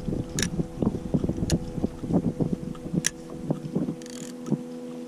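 A motor's steady hum with light irregular knocks underneath, and three sharp clicks about half a second, a second and a half, and three seconds in.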